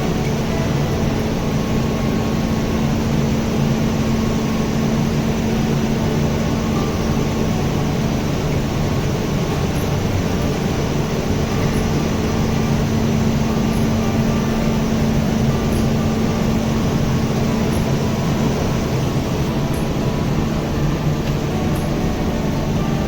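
Steady, unbroken machinery hum and drone, as from pumps and chiller equipment running in a plant room, with a faint tick about every two seconds.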